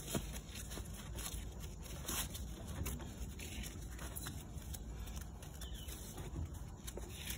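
Hands tying a fabric tie around the blind's metal frame rail: soft rustling of the camouflage fabric with scattered light clicks and scrapes.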